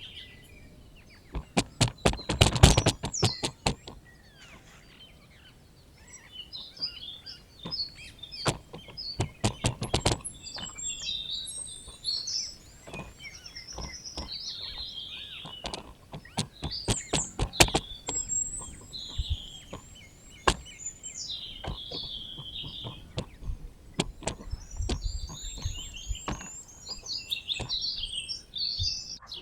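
Small birds chirping over and over, mixed with frequent sharp knocks and taps that come in quick clusters.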